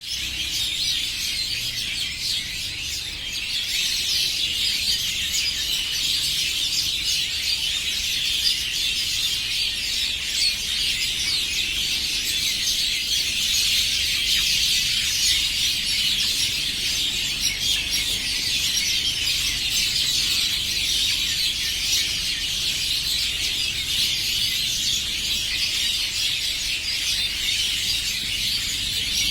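A dense chorus of many small birds chirping and twittering at once, unbroken throughout, with a low rumble underneath.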